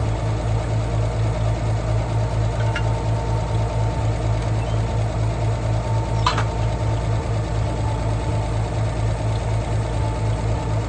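International 460 Utility tractor engine idling steadily with an even low pulse. A short metallic clink sounds about six seconds in.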